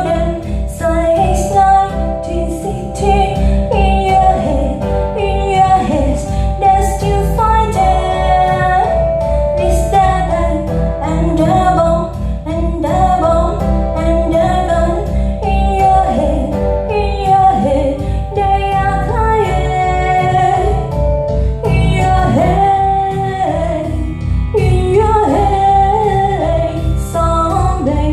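A song with a female singer and instruments over a heavy, pulsing bass, played back through a Bandwidth BWV-2 sound system as a test of its sound quality.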